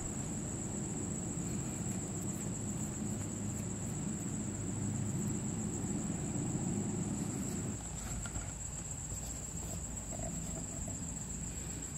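A steady high-pitched trill runs throughout over a low rumble; the rumble drops away about eight seconds in.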